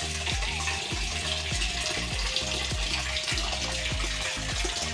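Water pouring from a hose into a shallow tank of catfish fry, a steady splashing hiss. Background music with a steady beat plays under it.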